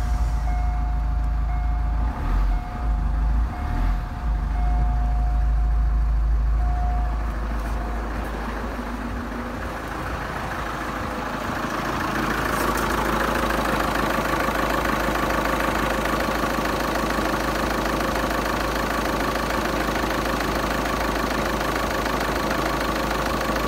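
Opel Astra H's 1.9-litre Z19DT four-cylinder turbodiesel idling steadily just after a start. For the first several seconds it is heard from inside the cabin as a deep hum. From about halfway it is heard up close under the open bonnet, where more of the engine's mechanical noise comes through.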